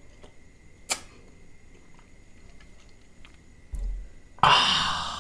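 Close-miked eating sounds: a single sharp click about a second in, a soft low thump later, then a loud breathy rush near the end that fades away.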